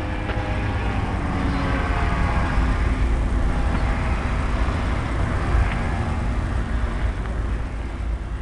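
Brushless electric motor of an RC airplane driving a 15-inch propeller on a ground run-up, throttled up to a peak a few seconds in and eased back near the end, with heavy low buffeting from the prop wash. The owner suspects the propeller is out of balance.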